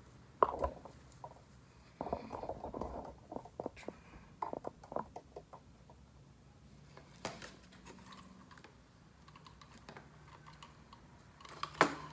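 Irregular clicks, knocks and rattles of hands handling test wiring, alligator clips and a plastic controller box on a bench, with loud sharp knocks about half a second in and again near the end.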